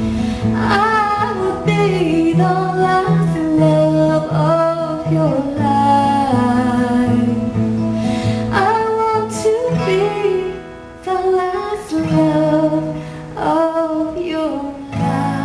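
A woman singing live while strumming an acoustic guitar. Her sung phrases come and go over a steady, evenly pulsed guitar part.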